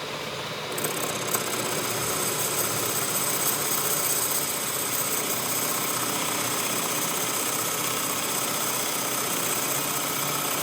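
A workshop machine running steadily, with constant high-pitched tones over a broad noise and a couple of small clicks in the first second and a half.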